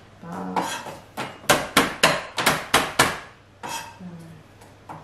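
Kitchen knife knocking on a chopping board while trimming garlic cloves: a run of sharp knocks, quickest in the middle at about four a second.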